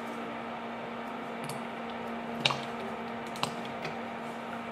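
Cooking oil pouring in a thin stream from a large plastic bottle into a wok, a squishy liquid pour with a few sharp ticks, the loudest about two and a half seconds in. A steady low hum runs underneath.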